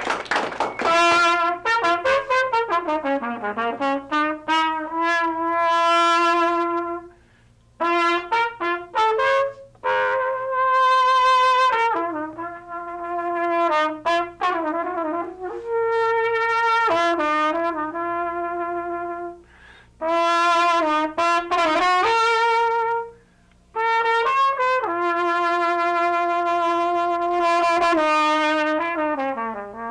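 Solo trumpet playing a melody of held notes in short phrases, with brief pauses between phrases and a few notes sliding down in pitch.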